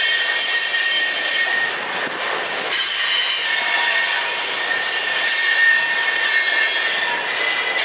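Freight cars rolling past on the rails, wheels squealing in several steady high-pitched tones over the rushing noise of the train.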